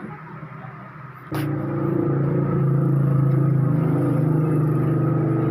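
Epson L120 inkjet printer's mechanism starting with a click about a second in, then its motor running with a steady hum.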